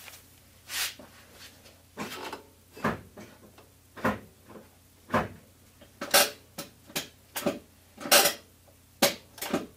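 A car's hand brake lever being pulled up and let down several times, a dozen or so short ratcheting clatters spaced out, to work the rear drum brakes' self-adjusters and seat the freshly adjusted shoes.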